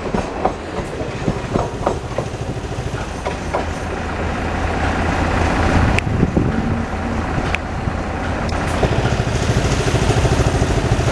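Passenger express coaches rolling past close by, their wheels clicking sharply over rail joints for the first few seconds. A steady rumble follows as the train runs on.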